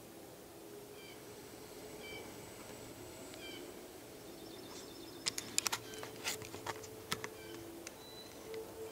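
Handling noise inside a fabric ground blind: a burst of sharp clicks and knocks about five to seven seconds in as the camera is moved. Behind it a bird calls faintly, a short chirp repeated about once a second.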